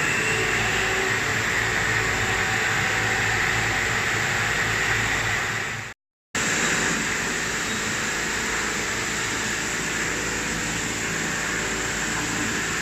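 Sigma Zenit 6 vertical machining center running, a steady hiss over a constant low hum. The sound cuts out abruptly for a moment about six seconds in and resumes just as before.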